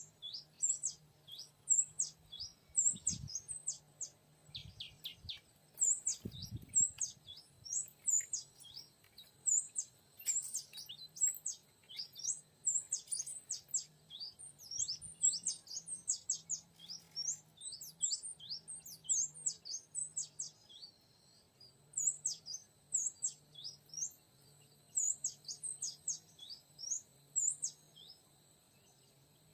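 Oriental magpie-robin song: quick runs of high chirps and whistled notes, repeated without pause, the kind of call used to lure the bird to a trap. Two low thuds come about three and six seconds in.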